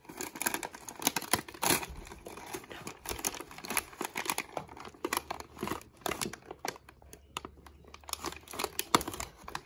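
Shiny foil gift bag crinkling and rustling in irregular crackles as a hand grabs and lifts it.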